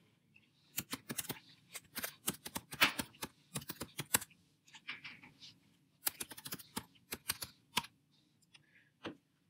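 Typing on a computer keyboard: a run of keystrokes lasting about three seconds, a pause, then a shorter run, and a single key click near the end.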